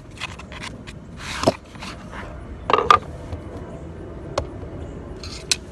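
Minn Kota MKA-21 quick-release trolling motor bracket being fitted together: a scrape about a second and a half in, then several sharp clicks and knocks of the parts seating, the loudest about three seconds in.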